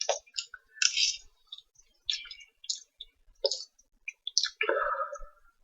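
Close-up eating noises: a string of short clicks and slurps as the last noodles are eaten from a cup, with a longer, fuller slurp or breath about four and a half seconds in.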